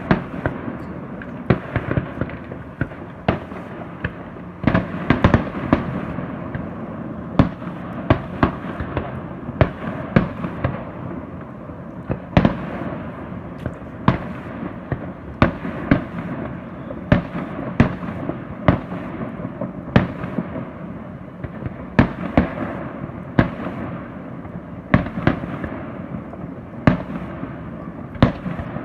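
Fireworks going off: irregular sharp bangs, one to two a second, over a constant din of further bursts.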